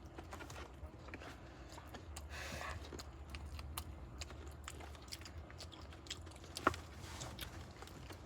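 A person biting and chewing food close to the microphone: scattered small crunches and clicks, with a sharper click near the end.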